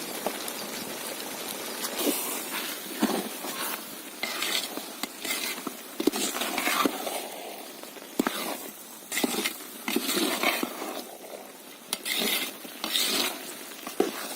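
A ladle stirring and scraping pumpkin halwa in a cooking pan, in irregular strokes with occasional sharp clinks against the pan, over a faint steady hiss.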